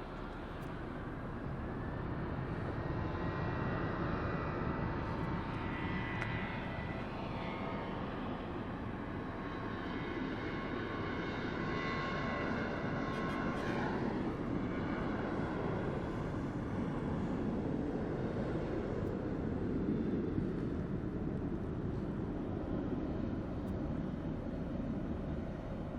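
Jet airliner's engines going past: a high engine whine that shifts in pitch over a broad rumble, the rumble swelling in the second half.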